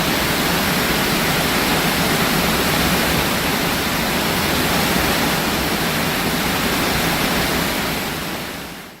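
Waterfall's steady rush of falling water, fading out near the end.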